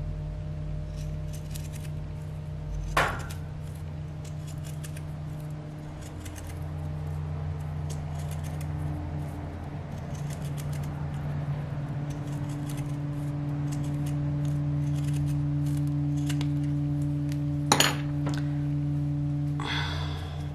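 Zigzag pinking scissors snipping through suede leather in short crisp cuts, a few of them sharper snaps, over a steady low humming drone.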